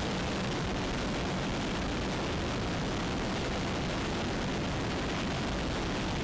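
Steady in-flight cabin noise of an MV-22 Osprey tiltrotor with the rear ramp open: a constant rush of wind and engine and rotor noise over a low steady hum.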